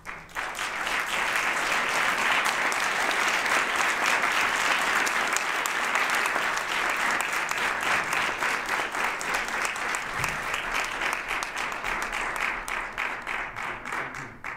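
Audience applauding, a dense, steady clapping that thins out into more separate claps near the end.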